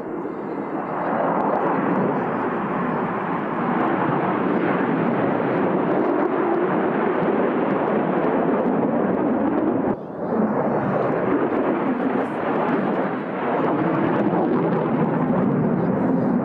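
Steady jet engine noise from F-16 fighter jets flying past overhead, with a brief drop about ten seconds in.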